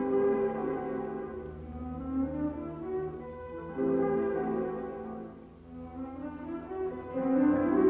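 Orchestral film score with sustained horn and string notes, growing louder near the end.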